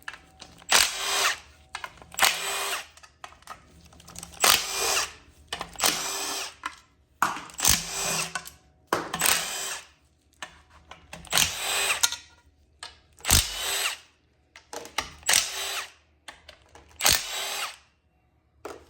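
Cordless power drill spinning out the 10 mm bolts of a GM 9.5 inch differential cover, running in about a dozen short bursts with pauses between, and a few sharp clicks in between.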